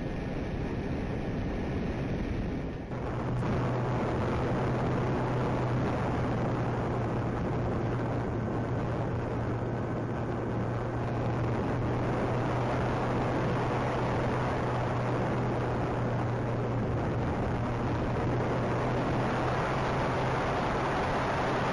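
Onboard camera audio of a Multiplex TwinStar RC plane in flight: wind rushing over the airframe with the steady hum of its electric motors and propellers. The hum gets stronger about three seconds in.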